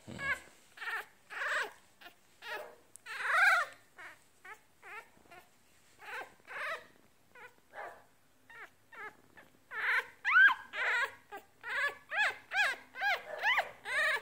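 Week-old Yorkshire terrier puppy whimpering in a string of short, high, rising-and-falling cries, which come faster and louder about ten seconds in. The puppy is hungry.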